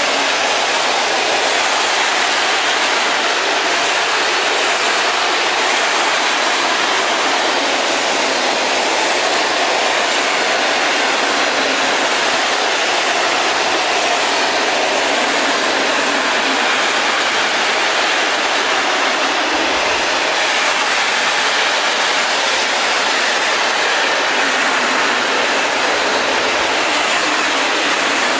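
Container freight wagons rolling past close by, a loud, steady noise of steel wheels running on the rails.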